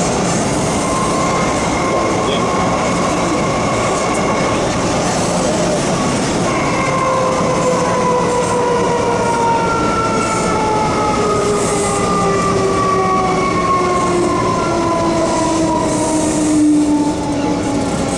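Hong Kong MTR M-Train electric multiple unit running in a tunnel: its traction equipment gives a loud whine of several tones falling steadily in pitch as the train slows, over a steady rumble of wheels on track. The whine is strong and long-lasting.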